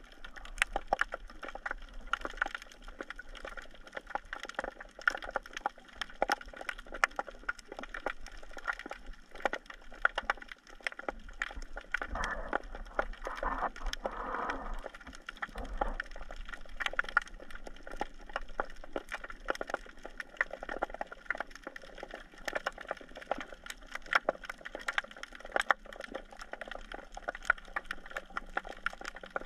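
Underwater crackle from snapping shrimp on a rocky reef: a dense, continuous patter of sharp clicks. About twelve seconds in, a louder rush of water noise rises over it for a few seconds.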